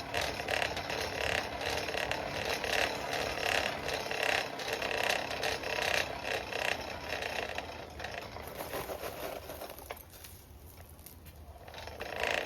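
Mechanical whirring and rattling at a coal forge, with scattered metallic clinks; it fades away about ten seconds in and picks up again near the end.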